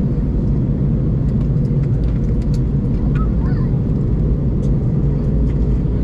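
Airbus A321 cabin noise in flight: a steady low rumble of the engines and the airflow over the fuselage, with no change in level.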